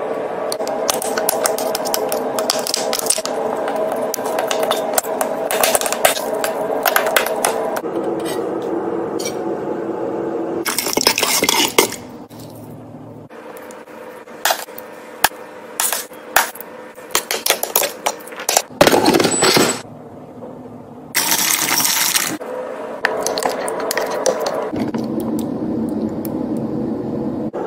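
Metal tongs clinking and scraping against the metal inner pot of an electric pressure cooker while lifting and pulling apart braised short ribs: many sharp clinks, with two brief louder scraping bursts.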